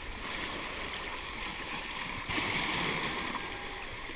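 Seawater sloshing and washing over shoreline rocks, with a louder surge of splashing a little over two seconds in.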